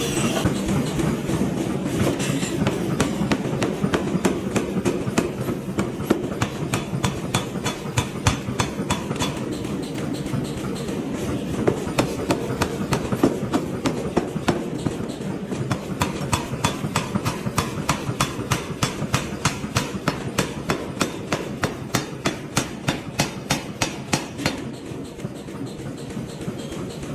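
Hammer blows on hot iron during forging, struck in a fast, even rhythm of a few blows a second over a steady low machine rumble.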